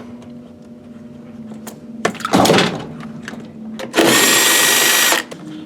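Power drill-driver running steadily for about a second near the end, with a high motor whine. About two seconds in, a short scraping clatter.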